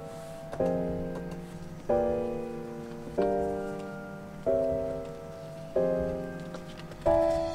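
Background piano music: slow chords struck about every 1.3 seconds, each left to ring and fade before the next.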